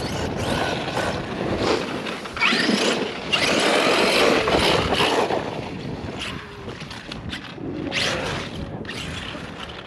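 Brushless electric motor and drivetrain of an Arrma Outkast 8S RC truck revving in bursts, its whine rising and falling as the throttle is worked, with tyres churning soft dirt.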